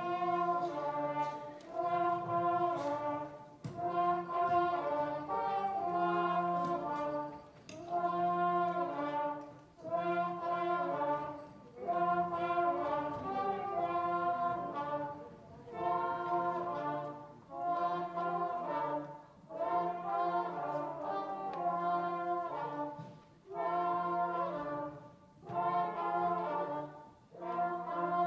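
Live pit orchestra playing with brass instruments leading. It starts abruptly and goes in phrases of about two seconds, each with a short break between.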